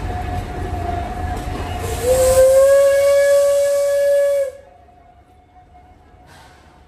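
Steam whistle of the Shay geared steam locomotive SL31: one steady blast of about two and a half seconds with a hiss of steam. It starts about two seconds in and cuts off sharply.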